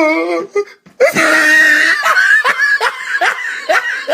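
A person laughing hard, high-pitched, in a quick run of repeated pulses after a short break about a second in.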